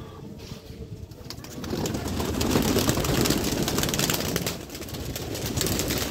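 A flock of white domestic pigeons flapping their wings as they pour out of an opened loft, a dense flurry building about a second and a half in, with some cooing.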